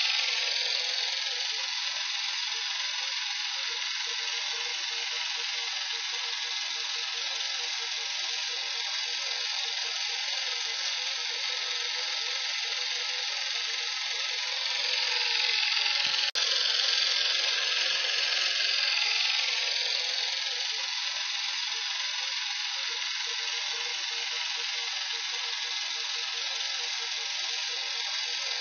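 A steady, fast mechanical rattling whir, louder for a few seconds past the middle, with one sharp click about sixteen seconds in.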